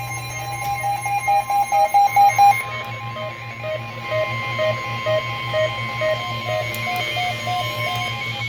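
NOAA Weather Radio's 1050 Hz warning alert tone, one steady tone held for about eight seconds, which signals that a warning message is about to be read. Over it an electronic alarm beeps in quick, regular pulses that drop in pitch about two and a half seconds in.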